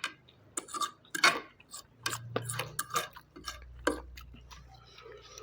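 Irregular light clicks and taps of eating utensils against plates or bowls during a meal.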